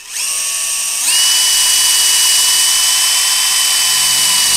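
Cordless drill drilling into the low-pressure seal of an Adwest power steering box. It starts, speeds up about a second in to a steady high whine, and stops at the end.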